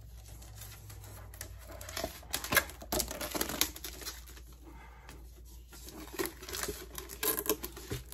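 Clear plastic wrap crinkling and tearing as it is peeled off a hard plastic laptop shell case, in irregular crackles. The crackles are busiest about two to three seconds in and again near the end.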